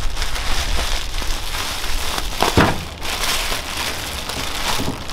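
Plastic wrapping crinkling and rustling as it is pulled open by hand, with a louder crackle about two and a half seconds in.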